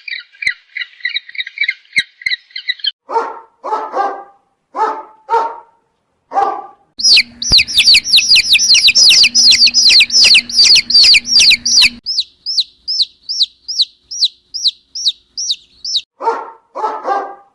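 Spliced animal sounds: a fast, high, even chirping at the start, then a dog barking in short single barks and pairs, then a bird's rapid downward-sweeping calls, several a second, and dog barks again near the end.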